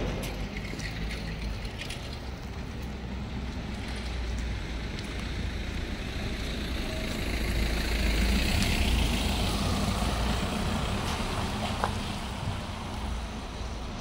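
A motor vehicle on a wet brick street: a steady low rumble with tyre hiss that grows louder past the middle and then eases off.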